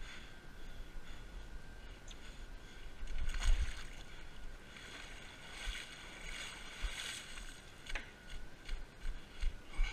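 Muffled thumps and rustling picked up by a body-worn action camera on a moving runner, with two spells of hissing noise, the louder one about three seconds in.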